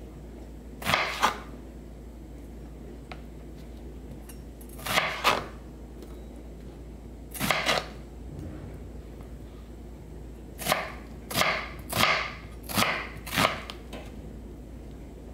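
Chef's knife slicing a red onion on a plastic cutting board. A few separate cuts come first, then five in quick succession near the end.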